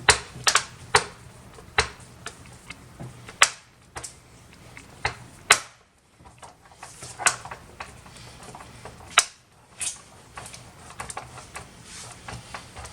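Screw being backed out of a Lenovo ThinkCentre Edge 72z all-in-one's rear cover with a small Phillips screwdriver: irregular sharp clicks as the screw turns and loosens. There is a brief pause about six seconds in.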